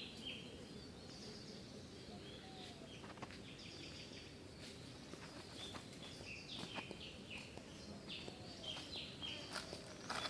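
Birds chirping faintly in short, repeated calls, several at once, over a low steady outdoor background noise.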